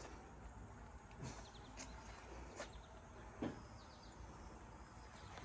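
Quiet outdoor ambience with faint, short bird chirps and a few soft knocks, the clearest one about three and a half seconds in.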